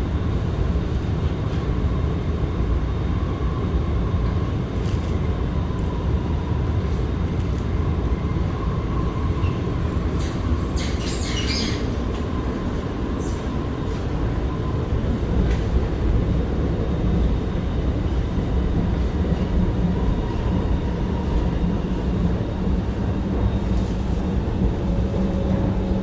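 R151 MRT train running, heard from inside the car: a steady rumble of wheels on rail with a faint steady whine. A brief high-pitched wheel squeal comes about ten seconds in, and a low hum grows stronger near the end.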